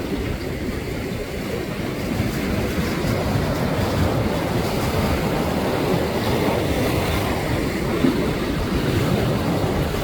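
Ocean waves washing in a steady, unbroken rush, with wind rumbling on the microphone.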